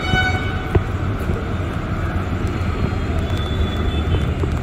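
Street background noise while walking: a steady low rumble of traffic and wind on the microphone, with a short high-pitched tone right at the start and a sharp click just under a second in.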